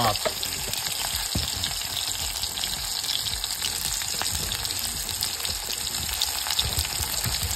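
Onion slices sizzling and crackling in hot mustard oil in an iron kadhai: a steady frying hiss with many small irregular pops.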